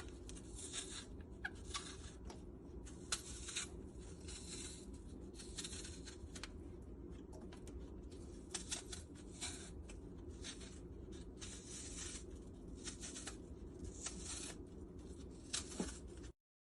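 Apples being peeled by hand with a peeler: short, irregular scraping strokes, about one or two a second, over a steady low hum. The sound cuts off suddenly near the end.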